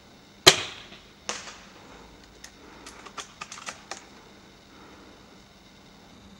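Cyma CM707 spring-powered bolt-action airsoft sniper rifle firing one shot with a sharp crack, followed under a second later by a fainter crack. About two seconds in comes a quick run of seven or so small metallic clicks, the bolt being worked to cock the spring and chamber the next BB.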